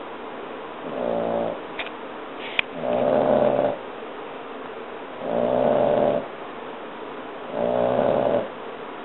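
French Bulldog puppy snoring: four pitched snores, each about a second long, coming about every two and a half seconds. This is the noisy breathing typical of the breed's short, flat-faced airway. A short sharp click comes between the first two snores.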